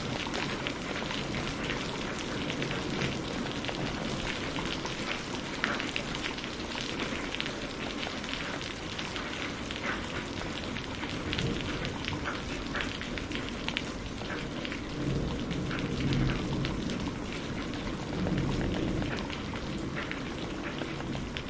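Steady rain falling hard, thick with distinct drop hits, with low rumbles of distant thunder rising twice in the second half.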